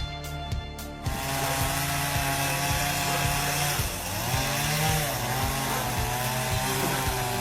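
A motor-driven wood-cutting machine starts up about a second in, running and cutting wood with an engine pitch that wavers under load, over background music with a steady beat.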